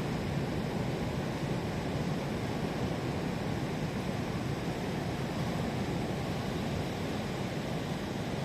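Sea surf washing onto the shore in a steady, unbroken rush with no single wave standing out.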